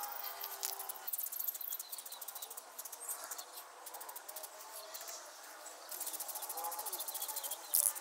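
Insects chirping in a fast, steady pulsing of high chirps, with a brief loud hiss near the end.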